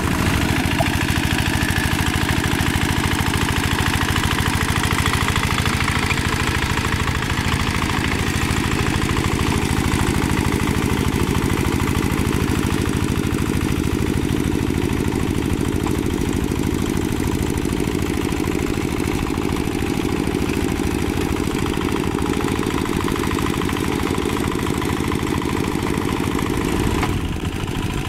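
Two-wheel hand tractor's single-cylinder diesel engine running steadily as it works through paddy mud. The sound shifts abruptly near the end.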